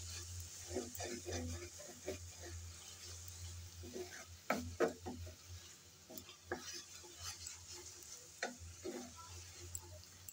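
Wooden spatula stirring and scraping a thick onion-spice masala in a metal pan, in irregular strokes, two of them louder about halfway through, over a faint sizzle of hot oil. The masala is fried down far enough that the oil has separated.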